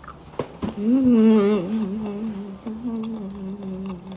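A woman humming a tune with her mouth closed, in two drawn-out phrases, the first wavering in pitch and the second held fairly level, after a couple of light clicks.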